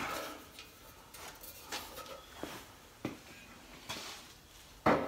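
Scattered light knocks and clatters of things being handled in a workshop, a handful over a few seconds, with a louder knock near the end.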